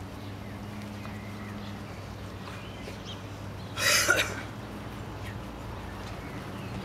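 A dog's single short, breathy huff about four seconds in, over a steady low hum.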